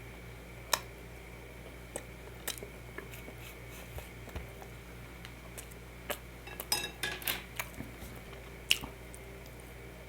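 Close-miked eating sounds: wet squishing of food with scattered sharp clicks, including a quick run of clicks about two-thirds of the way through.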